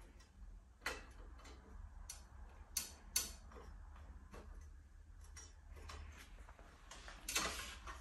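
Scattered small clicks and knocks of hard parts being handled and unfastened on a motorcycle's front end, as a plate of a frame-measuring laser tool is removed. Several sharp clicks come a second or so apart, a couple of louder ones near the end, over a faint low hum.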